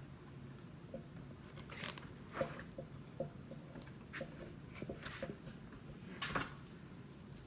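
A person chewing and biting into pizza, with scattered short crunches and mouth clicks.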